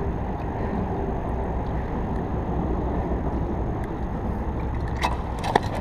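Steady low outdoor rumble, with a few sharp clicks about five seconds in as a hook is worked out of a landed sheepshead.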